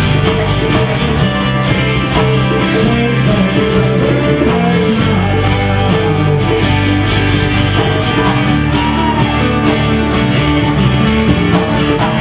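Live rock band playing an instrumental passage: guitar to the fore over bass and a steady drum beat.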